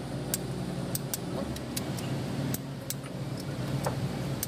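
Sharp metallic clicks and clinks of a wrench working on the cylinder-head bolts of a Kia Bongo engine as they are torqued down, coming irregularly two or three times a second over a steady low machine hum.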